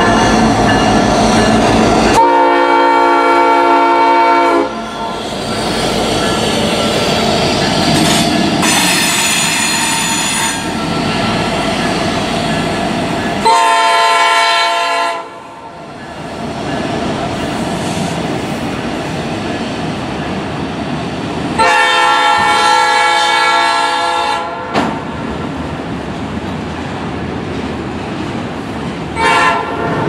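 Freight train passing with its locomotives' air horn blowing: a long blast a couple of seconds in, another at about thirteen seconds, a long one a little past twenty seconds and a short one at the very end. Between the blasts the cars rumble and clack by, with a high squeal around nine seconds in.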